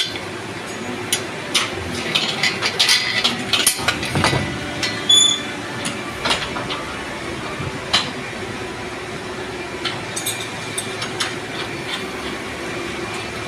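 Irregular metallic clinks and knocks of a spanner working the fittings on a truck body's steel side boards, busiest in the first half with a few louder knocks around the middle, over a steady machine hum.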